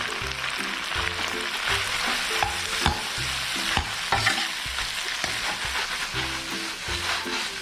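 Crayfish being stir-fried in hot oil with chilli bean paste: a steady sizzle, with the spatula scraping and clacking against the pan several times.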